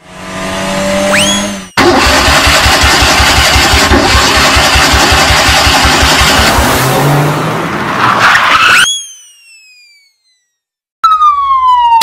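Cartoon sound effects: a car engine revving and running hard with a fast low throbbing for several seconds, opened by a short rising whine. Near the end, falling whistle tones follow, the last one after a short silence.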